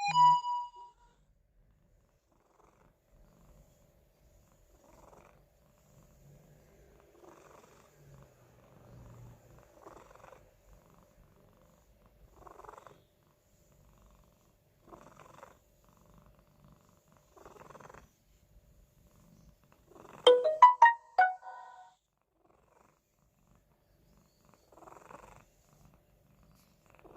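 A sleeping pet snoring softly, one faint breath about every two and a half seconds. About twenty seconds in, a short run of bright chiming notes sounds for roughly two seconds.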